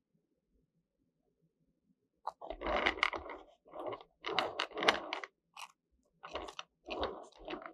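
Metal spatula spreading whipped cream over a cake and broken Oreo cookie pieces: a run of about six uneven scraping strokes, starting about two seconds in.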